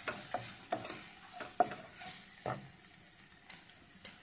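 A wooden spatula stirring sliced onions and spice powder frying in a non-stick pan, with a faint sizzle. There are several soft knocks of the spatula against the pan in the first two and a half seconds, and the stirring goes quieter after that.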